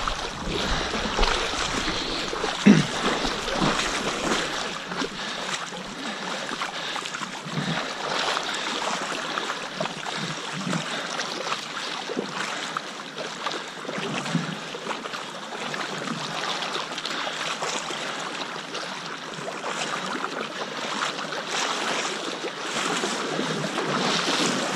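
Fast river current rushing and sloshing around a wading angler's legs: a steady watery rush, with one short thump about three seconds in.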